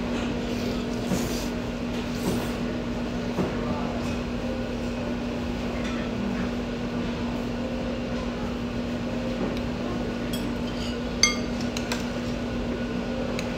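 Eating at the table over a steady low hum: soft eating noises, then a few light clicks of utensils on dishes. About eleven seconds in comes a sharp, ringing clink of a utensil against a bowl, the loudest sound.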